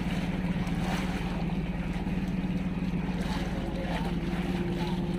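Motorboat engine running steadily at an even, unchanging pitch, with wind and water noise.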